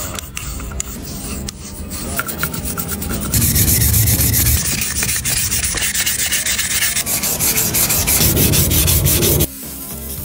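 Abrasive rubbing, like sanding by hand, on a part during a radiator fan motor repair. It grows much louder about a third of the way in and stops abruptly near the end.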